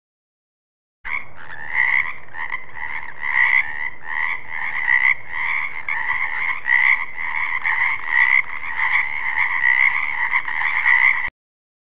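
Frog croaking in a dense, unbroken run of rapidly repeated calls. The sound starts suddenly about a second in and cuts off suddenly near the end.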